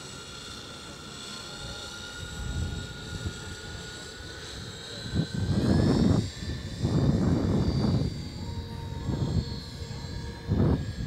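Engines of a radio-controlled scale model Junkers Ju 52 in flight: a steady, high-pitched drone whose pitch drifts slowly. From about five seconds in, several loud bursts of low rumbling noise come in over it.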